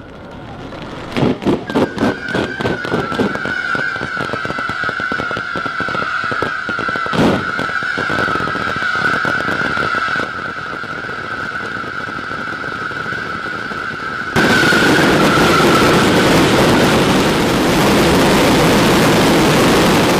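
A huge barrage of firecrackers and fireworks: loud sharp bangs in quick succession in the first few seconds, then dense rapid crackling. About fourteen seconds in it jumps suddenly to a much louder, continuous crackle. A steady high whistle runs under the crackling until shortly after the jump.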